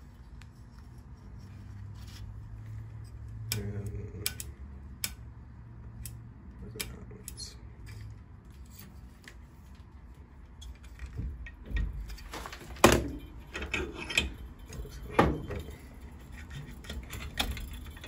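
Scattered clicks and light rattling from handling a mini-fridge thermostat and multimeter test leads as its dial is turned, with the loudest clicks about two-thirds of the way through.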